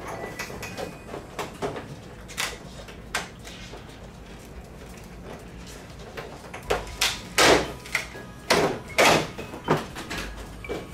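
Large plastic diffuser sheets of a 75-inch LED TV being lifted off the backlight panel, the thin sheets flexing and rubbing against the frame. Scattered light clicks and rustles, then several louder swishing scrapes in the second half.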